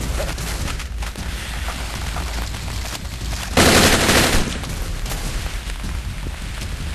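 A short rapid burst of gunfire, a film sound effect, lasting under a second, about three and a half seconds in, over a steady low rumble of background noise.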